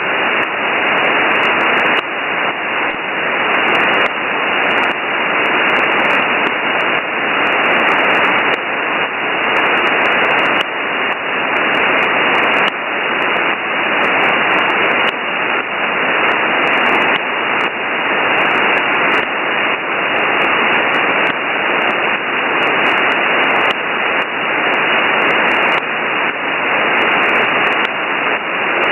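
Hiss of open shortwave band noise from a Winradio Excalibur Pro receiver in upper-sideband mode on an idle 8918 kHz aviation channel, with no station transmitting. The hiss is cut off above about 3 kHz, carries light crackles of static, and swells and dips every second or two.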